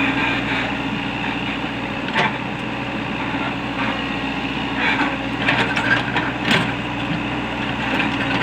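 Komatsu hydraulic excavator's diesel engine running steadily, with several sharp knocks, one about two seconds in and a few more between five and seven seconds in.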